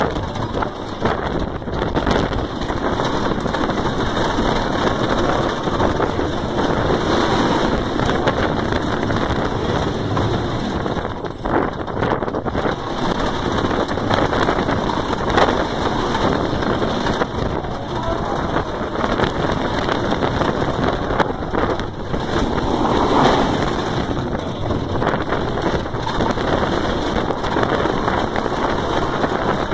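Wind rushing over a phone's microphone held by a rider on a moving wooden roller coaster, mixed with the steady running noise of the coaster train on its wooden track.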